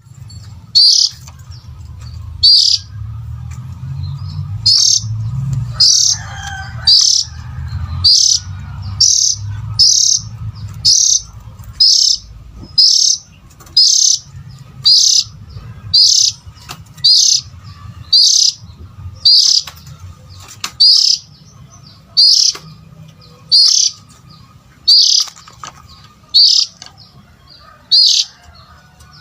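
Oriental magpie-robin (kacer) giving a short, sharp, high call over and over, about once a second, used as a lure call for breeding birds. A low rumble pulses underneath.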